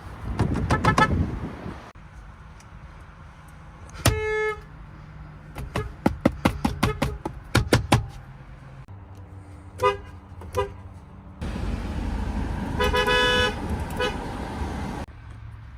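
Car horns from several different cars, one clip after another: a single short honk, a rapid run of short taps on a horn, two quick beeps, then a longer held honk over road noise.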